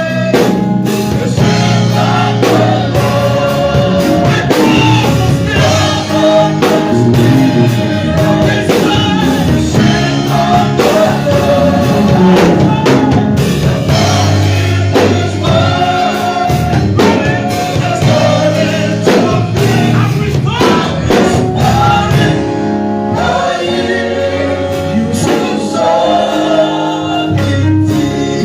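A group of voices singing a gospel song in a church, backed by instruments with a steady drum beat.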